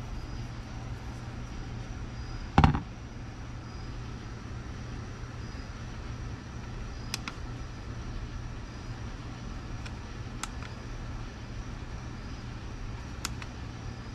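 A copper ingot is set down on a stainless-steel digital kitchen scale with one sharp clunk, followed by three light clicks as the scale's unit button is pressed, over a steady low hum.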